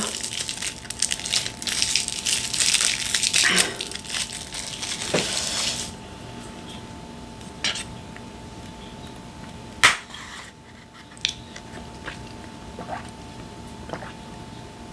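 Plastic straw wrapper crinkling as it is peeled off, for about six seconds. Then a few separate sharp clicks as the straw is pushed into a small paper milk carton.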